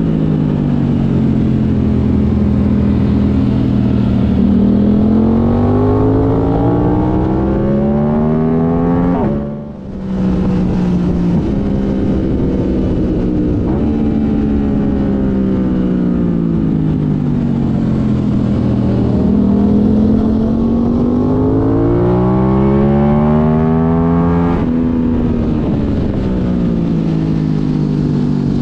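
Aprilia sport bike engine heard onboard at track speed. Its note climbs as the bike accelerates and cuts sharply for a moment about nine and a half seconds in, then sinks slowly as the bike slows. It climbs again and drops sharply once more near the end.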